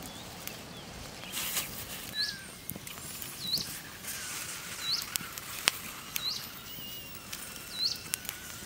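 A wood campfire crackling with scattered pops, one louder pop near the middle, and a short rustle about a second and a half in. A bird repeats a short rising chirp about every second and a half.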